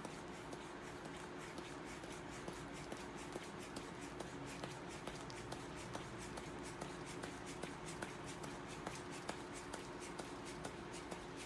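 Spinal decompression belt being inflated by hand: soft handling noise with many small irregular clicks, several a second, over a faint steady hum.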